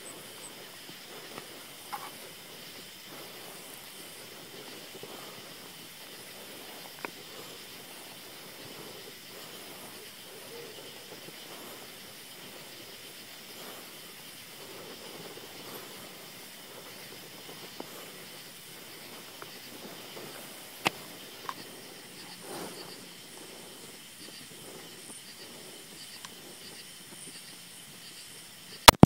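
Quiet steady hiss with a few faint clicks while the hunter waits, then right at the end a single loud shot from the AR rifle in 7.62x39, its report booming away after it.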